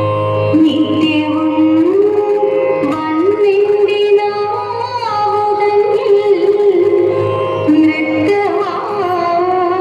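Thiruvathira song: a woman singing a melody that steps and glides in pitch over a steady drone.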